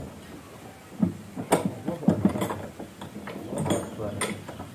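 Speaker cabinets being handled and set in place, giving a handful of sharp knocks and clunks, with men talking among them.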